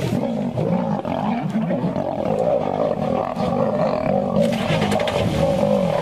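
Male lions growling and snarling continuously in a fight as one chases the other off, the growl wavering in pitch. A rushing noise joins in about four seconds in.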